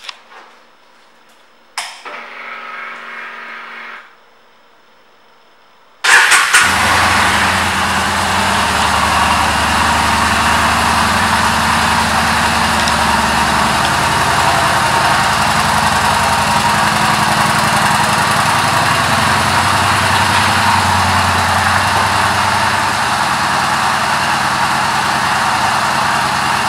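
2014 Yamaha Bolt's air-cooled V-twin: a click and a short whir about two seconds in, then about six seconds in the engine starts with a loud burst and settles into a steady idle.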